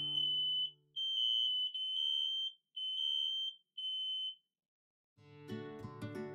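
SAFE-TECH SM Series smoke and heat alarms sounding: a high-pitched electronic alarm tone beeping in uneven pulses, stopping about four and a half seconds in. Background music fades out about a second in, and acoustic guitar music starts about five seconds in.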